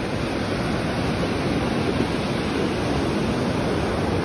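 Ocean surf breaking and washing up the beach: a steady rush of white water.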